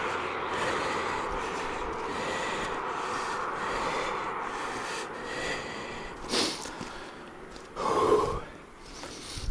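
A vehicle passing on an asphalt road, a steady hiss of tyres and engine that fades over about six seconds. Then a short sharp sound, and about eight seconds in a brief pitched cry.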